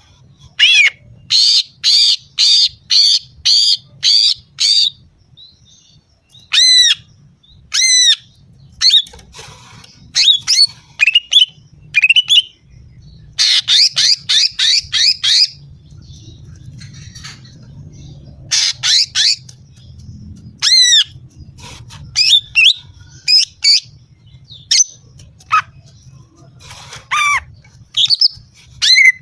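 Female green leafbird (cucak ijo) calling: loud, sharp repeated notes in quick runs of several, about two a second, broken by short pauses and scattered single notes. The calls are used as a lure to rouse male birds.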